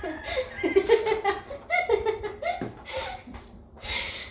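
People laughing, in short bursts of voiced laughter.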